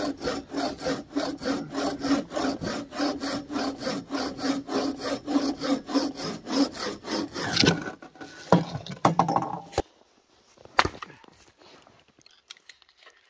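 Hand saw cutting through wood in quick, even strokes, about four a second; the sawing stops about eight seconds in and a few sharp knocks follow.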